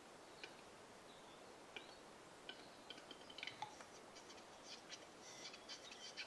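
Faint display song of a male western capercaillie: scattered dry clicks that come quicker and thicker near the end.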